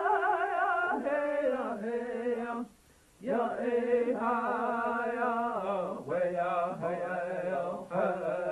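Chanting: long, wavering sung notes held for a second or more each, with a short break about three seconds in.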